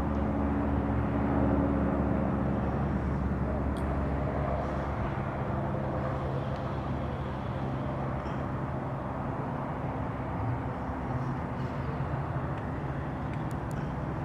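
Steady engine rumble with a constant low hum, slowly fading.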